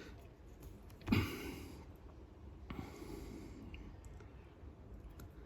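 A person breathing out close to the microphone about a second in, then a single faint click; otherwise low room noise.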